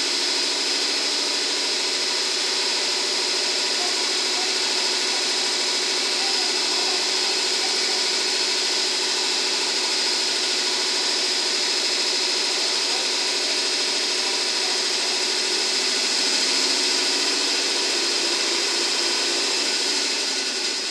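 Air compressor of a JR West EF65 electric locomotive (EF65-1135) running steadily at a standstill.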